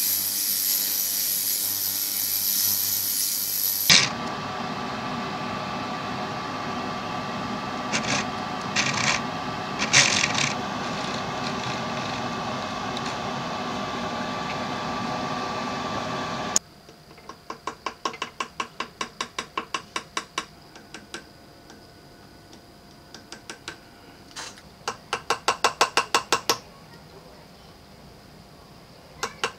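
A loud hissing jet for about four seconds. Then a steady mechanical hum with a few clicks. From about the middle on comes rapid ticking in bursts of a second or two, from a hand-held tool working on a diamond-set platinum piece.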